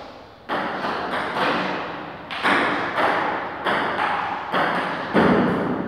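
Table tennis rally: the ball knocking off paddles and the table about once every three-quarters of a second, starting about half a second in, each hit echoing in a bare hall.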